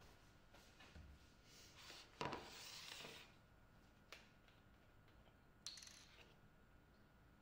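Faint handling of a paper oat milk carton at a kitchen counter: soft rustles and a few light clicks as it is picked up and its plastic cap twisted open, the sharpest click about two seconds in.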